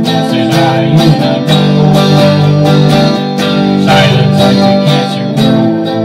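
Acoustic guitar strumming chords, about two strums a second.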